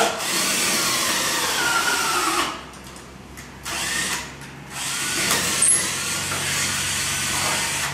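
Power drill boring a pin hole through a metal axle tube beside a wheel, in three runs. The first runs about two and a half seconds, its whine dropping in pitch as the bit bites. Then comes a short burst, and a longer run near the end.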